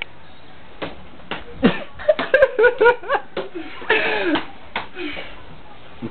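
Scuffling of two people wrestling on a floor: scattered slaps and knocks, with short bits of voice or laughter in between.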